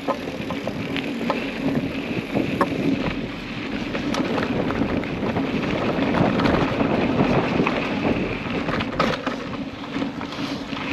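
Off-road vehicle crawling slowly along a rough trail: a steady engine drone with dense crackling and scattered knocks from the ground and the vehicle's body.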